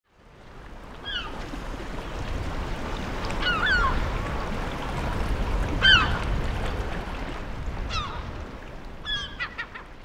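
Seabirds calling above the sea cliffs, short pitched calls every couple of seconds, over a steady rushing of wind and sea that fades in at the start.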